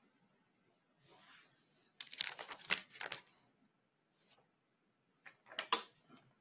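Close handling noise: a faint rustle, then two short clusters of clicks and rustles, the first about two seconds in and the second near the end.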